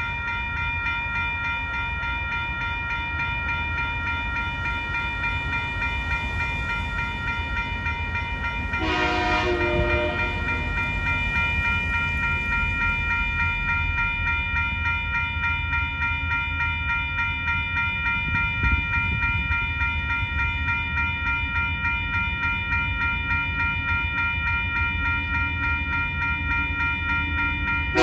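Level crossing bells ringing rapidly and steadily as the crossing lights flash, over a low rumble. A Tasrail TR-class diesel locomotive's horn sounds once for about a second, roughly nine seconds in, and again at the end as the train approaches the crossing.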